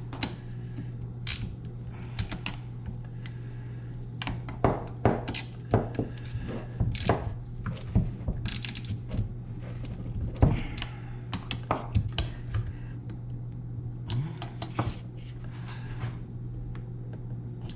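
Irregular metallic clicks and taps of hand tools working the cylinder bolts of a two-stroke chainsaw as they are tightened by feel, over a steady low hum.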